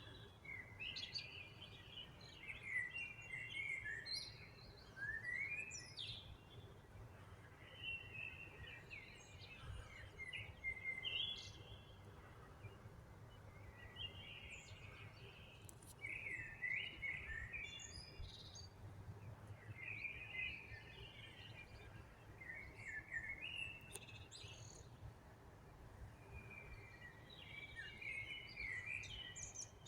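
Songbird singing short warbling phrases that repeat every two to three seconds, over a faint steady low rumble of background noise.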